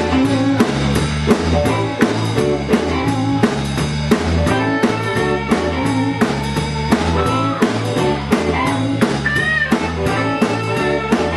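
A live blues band playing: electric guitars over a steady drum-kit beat and a stepping bass line.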